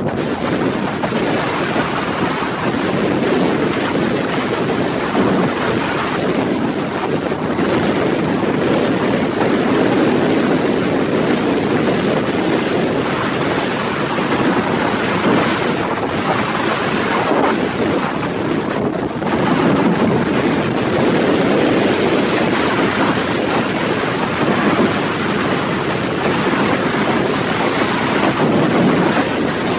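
Strong wind blowing hard across the microphone as a loud, steady rush of noise.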